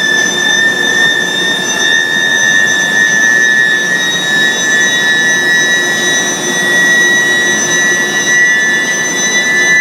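Medium-frequency induction billet heating furnace running, giving a steady high-pitched whine over a noisy machine hum. Late on, a second whine tone appears just above the first.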